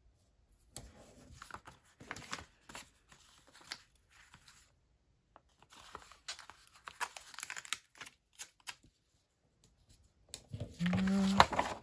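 Paper sticker sheets and planner pages rustling and sliding as they are picked up and handled, in short scattered bursts with a few light clicks. Near the end, the loudest moment, a brief low hum.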